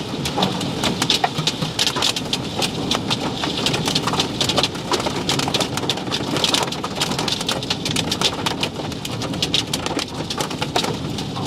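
Heavy wind-driven rain pelting a car's body and windshield, heard from inside the car: a dense, irregular patter of sharp hits over a steady low rumble of wind.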